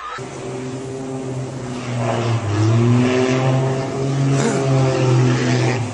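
Small propeller aircraft's engine droning as the plane dives low over the sea, its pitch wavering and the sound growing louder about two seconds in.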